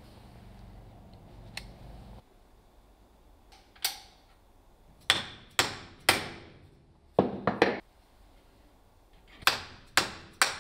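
A low steady hum that stops about two seconds in, then about ten sharp knocks, each with a short ringing tail, coming singly and in quick groups of two or three.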